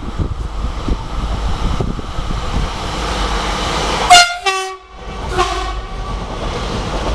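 A TER regional multiple-unit train running past at speed, sounding its two-tone horn about four seconds in (a higher note dropping to a lower one), with a shorter horn toot about a second later.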